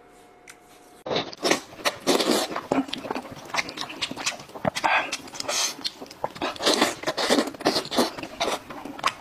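Loud close-up mouth sounds of a man eating meat off a sheep's head: a dense, uneven run of wet chewing, lip-smacking and slurping clicks that starts about a second in, after a quiet first second.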